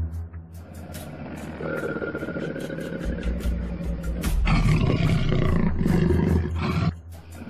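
A big cat roaring for about two and a half seconds, starting about four seconds in and cutting off abruptly near the end, over background music with held tones and a low drone.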